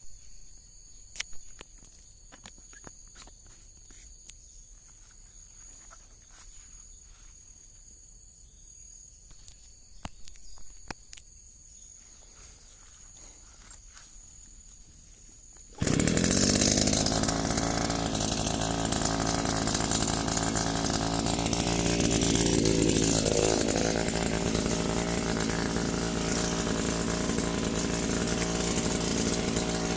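Quiet handling clicks with faint high steady tones, then, about halfway through, a petrol brush cutter's engine comes in suddenly and runs loud at high speed, its pitch dipping briefly and recovering a few seconds later.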